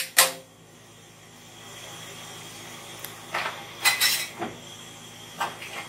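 Metal spoon knocking and clinking against a large aluminium cooking pot: one sharp knock right at the start, then a few lighter clinks in the second half, over a low steady hiss.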